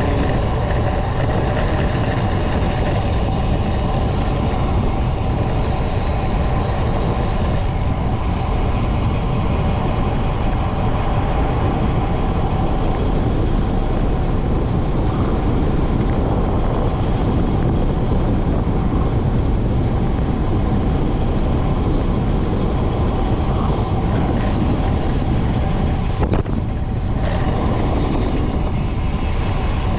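Steady wind rush over the microphone mixed with the tyre noise of a road bike rolling fast downhill on tarmac.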